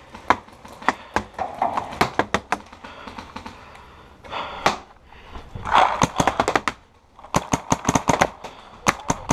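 Paintball markers firing: scattered single pops at first, then a fast string of close shots, about eight a second, in the last two seconds.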